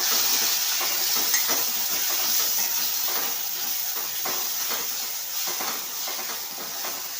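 Chopped tomatoes sizzling in hot oil and fried masala paste in a kadhai, a steady hiss that slowly gets quieter, with light scrapes of a spoon stirring.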